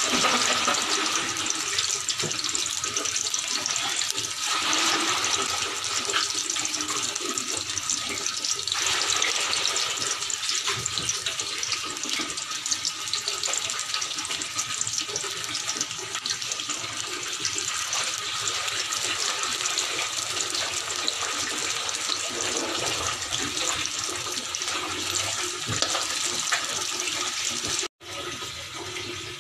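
Oil sizzling steadily in a metal wok as chopped onions and red chilies fry, with the occasional scrape of a spatula. The sizzle breaks off briefly near the end.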